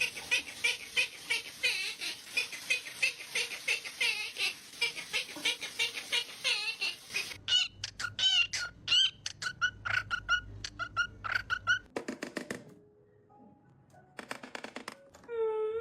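Parrot calls: rapid, evenly repeated short chirps, several a second. About halfway through, different, quicker chirps take over, followed by two short bursts and a falling whistled call near the end.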